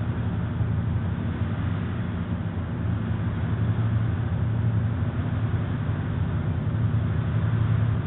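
An old refrigerator's compressor running with a steady low hum while it draws refrigerant in from a charging can.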